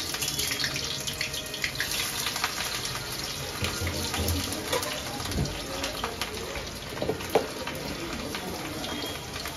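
Roughly chopped onion frying in hot mustard oil in a kadhai for a dal tadka: a steady sizzle with scattered crackles. A single brief knock about seven seconds in.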